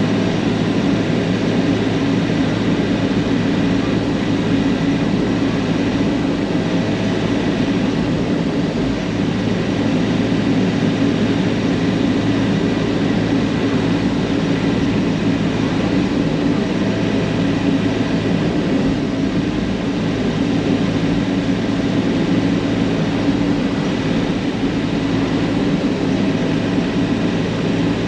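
Bobcat compact excavator's diesel engine running steadily under load, with its hydraulics working as the bucket digs a trench. Heard from inside the closed cab.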